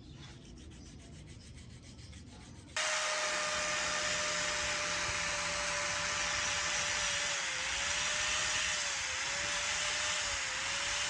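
Angle grinder with a red abrasive disc running against a steel TT-30 pistol part held in a vise: a loud, steady hiss of abrasion over the motor's whine, which sags briefly three times as the disc is pressed in. For the first three seconds or so there is only a quieter, rapid rubbing before the grinder starts suddenly.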